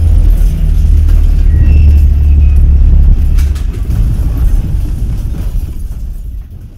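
A loud, deep rumble with music over it, strong for about three seconds and then fading away toward the end.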